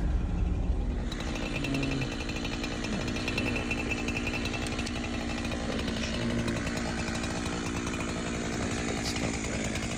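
Chainsaw running steadily under load during tree-felling work.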